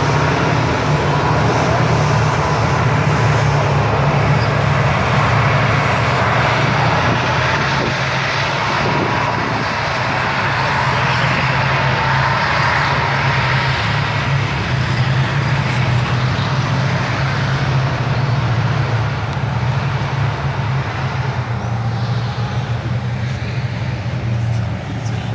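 Several tanks driving across a sandy training ground, their engines and tracks running steadily and growing a little quieter near the end.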